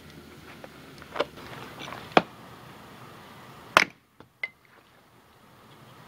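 Sharp wooden knocks of firewood sticks and a hatchet against wood, the loudest about two and nearly four seconds in, followed by two lighter taps.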